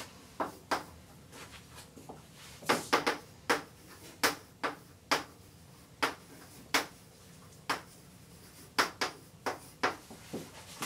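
Chalk on a blackboard as words are written out: a string of short, irregular taps and scratches.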